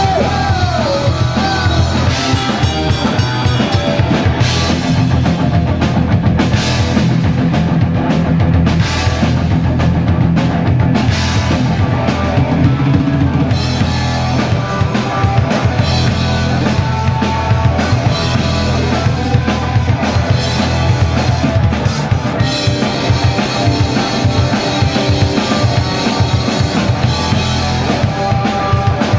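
Live rock band playing loud and continuously: distorted electric guitars, bass guitar and a drum kit with kick drum, snare and cymbals.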